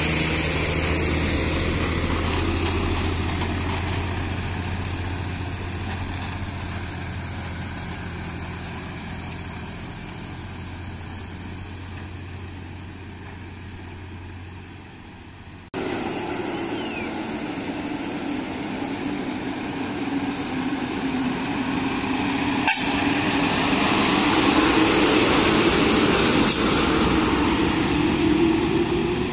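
Heavy loaded diesel lorry engines labouring up a hill road. The first lorry's engine fades steadily as it moves away. After a sudden change about halfway, a second lorry's engine grows louder as it approaches and passes close, with a sharp click about two-thirds of the way in.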